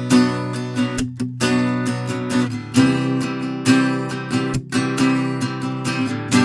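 Acoustic guitar with a capo, strummed in chords at a steady rhythm, with a couple of brief muted breaks between strums, recorded close on a condenser microphone.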